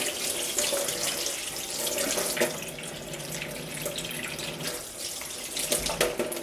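Kitchen tap running into a stainless steel sink, the stream splashing over a small pheasant being rinsed by hand, with a few light knocks.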